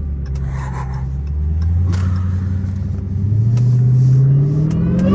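Supercharged 6.2-litre Hemi V8 of a Dodge Charger Hellcat Redeye with an aftermarket cold air intake, heard from inside the cabin. It runs steady at low revs, then revs up about three seconds in, its pitch rising and growing louder.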